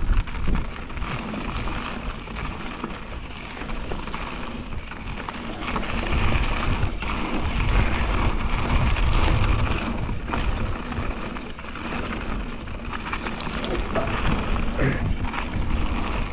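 Mountain bike riding down a dirt trail: a steady rumble of wind buffeting the helmet or chest camera's microphone, mixed with tyre noise on the dirt and scattered clicks and rattles from the bike, more of them in the second half.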